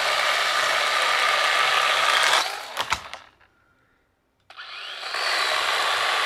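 Cordless power saw cutting through a dead tree leaning across the trail: the motor runs under load, cuts off about two and a half seconds in, and a few sharp cracks follow. The saw starts again, winding up, about four and a half seconds in.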